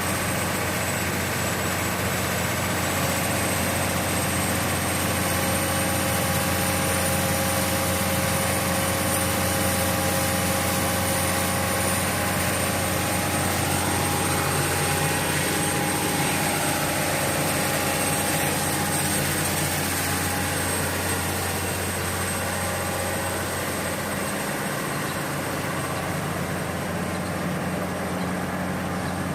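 Excavator's diesel engine running steadily under a low hum, with a thin high whine over it; it eases off a little about two-thirds of the way through.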